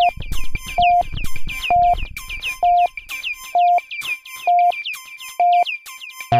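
Electronic dance track in a breakdown: a short high synth beep repeats about once a second over fast plucked synth notes that drop quickly in pitch. The bass drops away about three seconds in, and the full beat with heavy bass comes back in at the very end.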